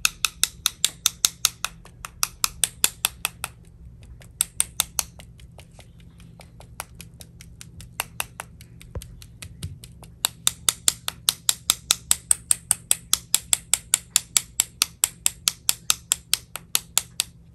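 Rapid, even tapping, about four to five sharp clicks a second: a paint-loaded Chinese brush knocked against another brush to drop and splatter paint. The taps come in a run at the start, thin out in the middle, and return in a long steady run from about ten seconds in until just before the end.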